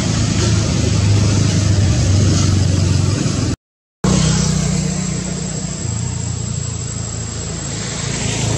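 A steady low engine hum, like a motor vehicle running, that cuts out completely for about half a second some three and a half seconds in.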